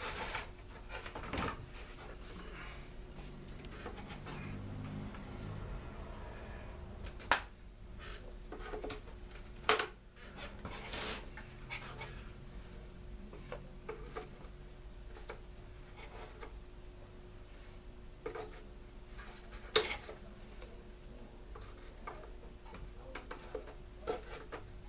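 Scattered clicks and knocks of small parts and tools being handled during teardown of a Stihl BG 56 C leaf blower, with three sharper knocks about 7, 10 and 20 seconds in, over a faint steady hum.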